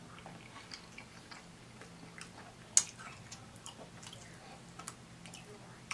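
Close-miked mouth sounds of a person eating a chicken wing: scattered small wet clicks and smacks of chewing and gnawing meat off the bone, with one sharp louder click about three seconds in.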